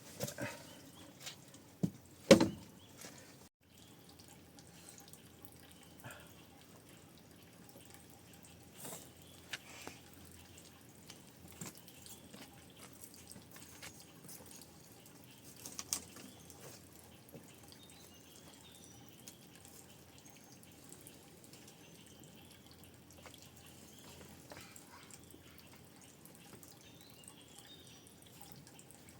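Sparse drips and light knocks of water, with one sharp, louder knock about two seconds in.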